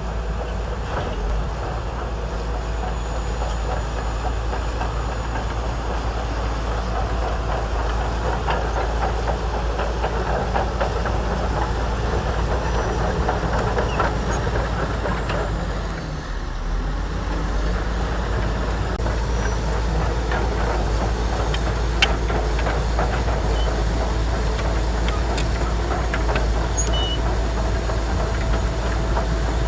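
Shantui DH17C2 crawler bulldozer working: its diesel engine running steadily under load, with the continuous clatter of its steel tracks. The sound dips briefly about midway, and there is one sharp clank about three-quarters of the way through.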